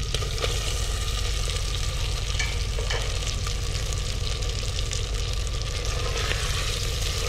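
Oily tomato-and-yogurt masala sizzling steadily in a clay pot as pieces of fried fish are slid into it, with a few faint ticks, then a wooden spoon stirring the pieces through the masala near the end.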